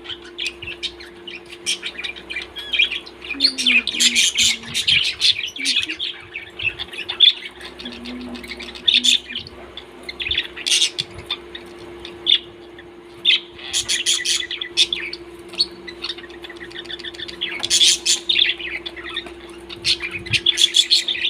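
Pet parrots chirping and squawking in repeated bursts of high calls, over a steady low hum.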